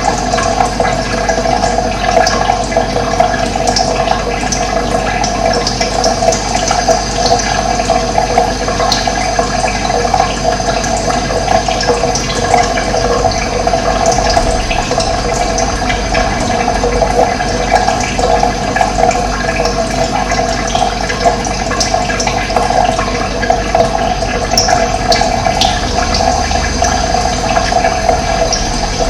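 Running water flowing steadily, a continuous loud gush with no breaks.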